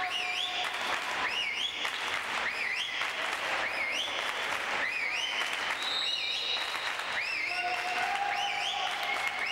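Sports shoes squeaking on a wooden indoor court during handball play: a run of short, rising squeals about every half second, a few of them drawn out, over a steady noisy hall din.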